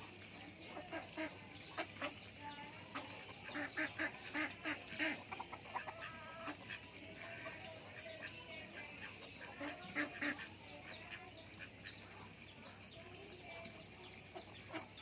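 Domestic ducks and other farmyard birds calling while they feed, a steady run of short calls with a busier flurry about four seconds in and another around ten seconds.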